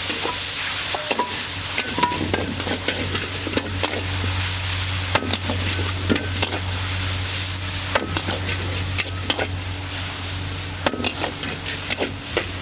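Char kway teow noodles sizzling loudly in a hot wok while a metal spatula scrapes and knocks against the pan in quick, irregular strokes, over a steady low hum.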